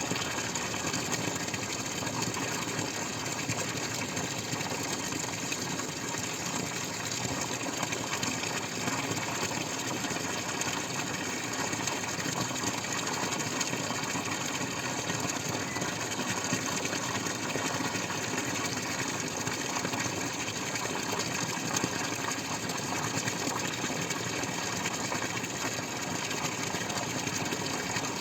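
Water running and splashing in a steady, continuous stream.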